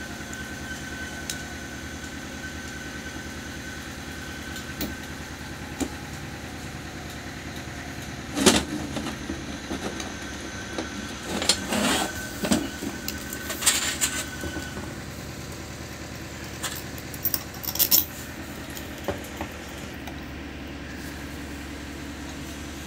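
Steel parts of a Same 503 tractor's distributor valve block clinking and knocking as they are fitted together by hand: a sharp knock about 8 s in, a cluster of clicks and taps from about 11 to 14 s, and two more near 18 s. A steady mechanical hum runs underneath.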